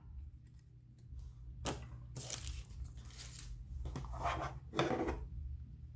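Trading cards and their wrappers being handled: a sharp tap a little over a second and a half in, then rustling and a couple of short scuffs as cards and packs are moved.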